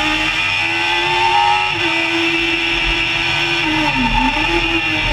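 Onboard sound of an open-cockpit hillclimb race car's engine pulling under load, its note climbing steadily and then holding. About four seconds in the revs dip briefly and pick back up.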